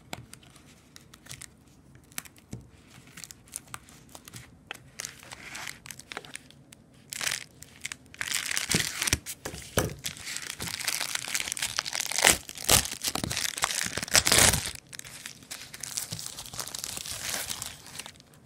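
Shipping packaging being torn and crinkled open by hand: scattered light rustles and clicks at first, then continuous loud crinkling and tearing from about eight seconds in, with several sharper rips in the middle.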